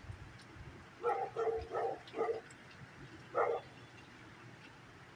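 A dog barking: four barks in quick succession about a second in, then one more a second later.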